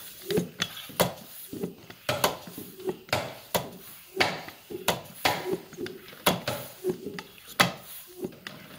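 Topeak floor pump pumped steadily by hand, a knock or click at each stroke, about one and a half strokes a second, as it inflates a bicycle tyre from about 2.5 bar to a little over 3.5 bar.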